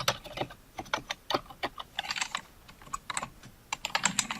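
Typing on a Logitech MK550 Wave wireless keyboard: a quick, irregular run of soft keystroke clicks.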